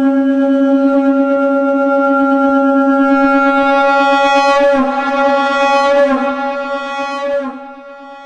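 Shankh (conch shell) sounding one long, steady blast pitched at C#. The blast grows rougher and wavers in its second half, then falls away to a quieter tail near the end.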